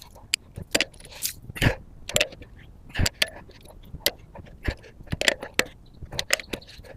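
Irregular sharp metal clicks and clinks of a torque wrench and socket working on a car wheel's lug nuts as they are tightened to spec.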